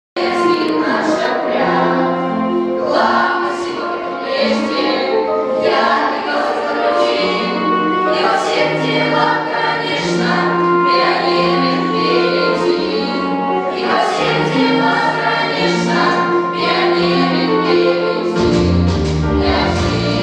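A choir singing a song with musical accompaniment, in held notes that move in steps; a deep bass part comes in about eighteen seconds in.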